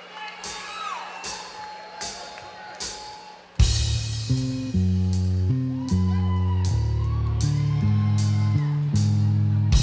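Drumsticks clicked together four times to count in the song, then a live rock band comes in hard about three and a half seconds in: guitars playing a low riff in steady stepped notes, with drums and a cymbal struck about twice a second.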